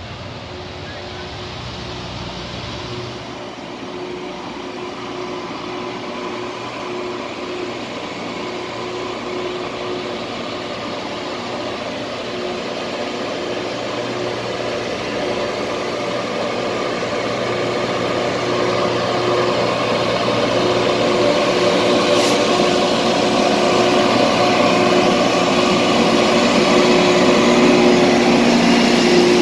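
LORAM rail grinder train's diesel engines running as it approaches and passes at slow speed, a steady hum that grows louder throughout. A single sharp click sounds about three-quarters of the way through.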